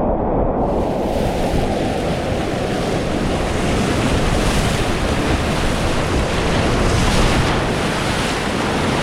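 Rushing whitewater of a big, fast river rapid, heard close up from a kayak. The sound is muffled at first, then opens up into a full, bright rush about half a second in.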